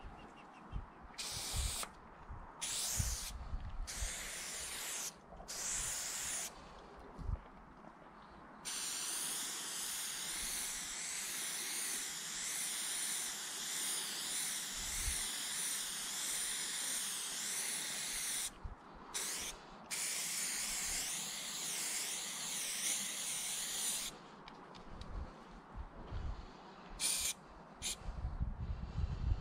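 Aerosol spray-paint can hissing as chrome (silver) paint is sprayed: several short bursts, then a long spray of about ten seconds and another of about five, then a few short bursts near the end.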